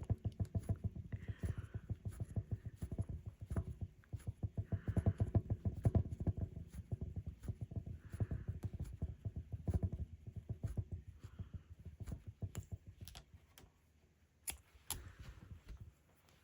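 Rug hook working wool through the backing: a fast run of small knocks and scratchy pulls, with a soft swish every few seconds as each loop is drawn up. The work stops about twelve seconds in, leaving only a few light clicks.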